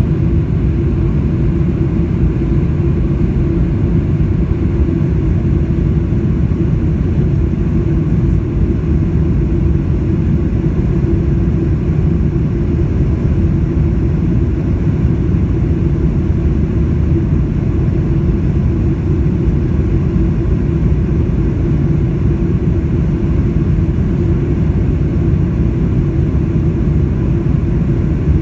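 Steady low roar inside the cabin of a Boeing 747-400 with Pratt & Whitney PW4056 engines, engine and airflow noise heard from a rear window seat, even in level and pitch throughout.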